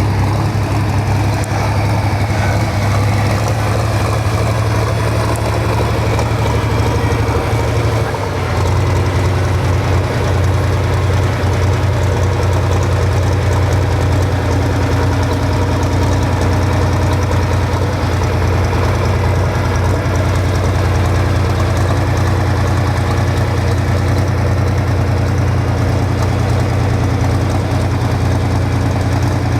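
Heavy diesel engine idling steadily, its low hum dropping slightly in pitch about eight seconds in.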